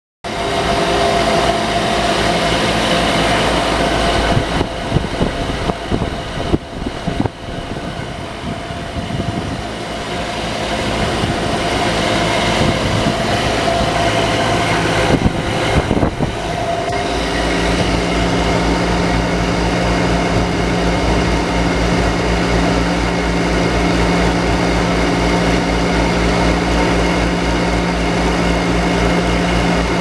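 2004 Trane Odyssey outdoor HVAC unit (model TWA090A300FA) running, its condenser fan and compressor giving a steady hum with a fast low pulsing. The low hum grows stronger about halfway through.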